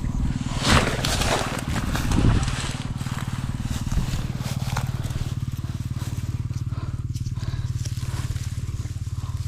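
A hooked snakehead fighting on the line: noisy splashes in the first two or three seconds, over a steady low hum with a fast, even pulse.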